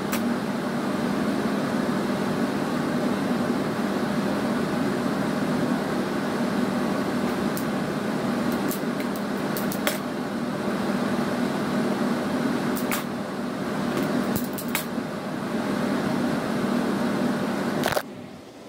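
Steady machine hum of a running appliance, with a strong low tone, overlaid by a few light clicks and taps. The hum cuts off abruptly near the end.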